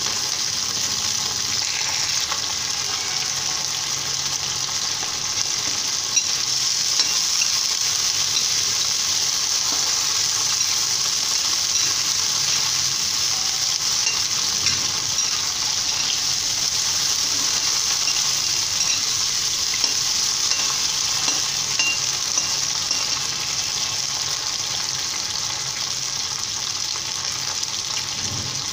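Cauliflower florets sizzling steadily as they fry in hot oil in a metal kadhai, with light scrapes and clinks of a steel ladle stirring them against the pan.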